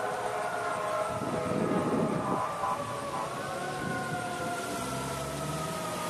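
Approaching fire apparatus siren, its pitch falling slowly, sweeping back up about three seconds in, then falling again. Passing traffic makes a louder rush of noise one to two seconds in.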